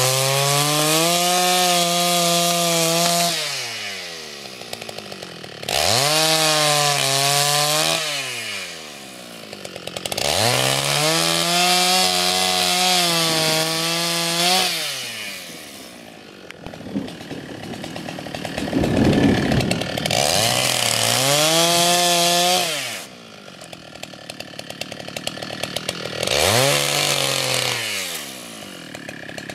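Gasoline chainsaw cutting through a thick downed tree trunk. It is run up to full throttle in bursts of two to four seconds and drops back to idle between them, about five times.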